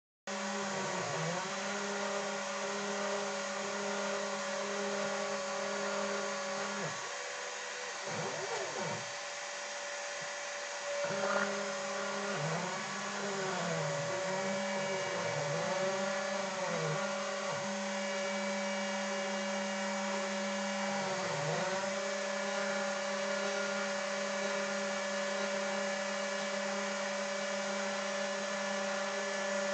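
A small CNC PCB mill's spindle motor runs with a steady whine. The stepper motors driving the axes add whines that rise and fall in pitch as they speed up and slow down. The steady spindle tones drop out for a few seconds about a quarter of the way in while the stepper glides continue.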